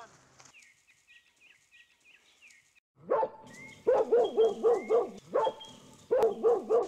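Dog barking, starting about three seconds in: a single bark, then a quick string of about five, another single bark, and a string of four more near the end.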